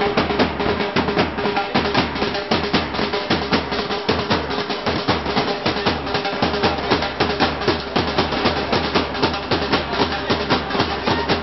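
Fast, steady drumming, dense strikes without a break, with a held note sounding underneath.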